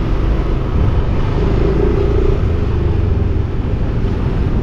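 A motorcycle running along a street: a steady low rumble of engine and road noise, with the engine's hum coming up for about a second, about a second and a half in.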